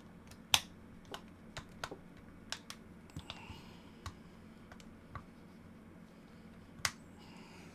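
Plastic pry pick clicking against the plastic casing of a Google Nest Hello doorbell as it is worked open: irregular sharp clicks, with a louder one about half a second in and another near the end.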